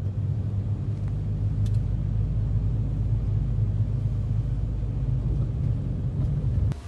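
Steady low rumble of a car on the move. It drops off sharply near the end.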